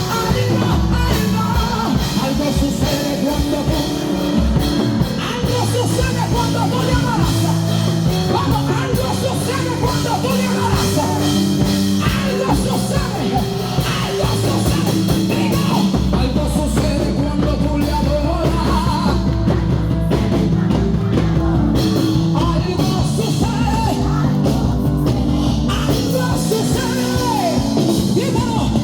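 Loud live worship band music, with voices singing and shouting over it.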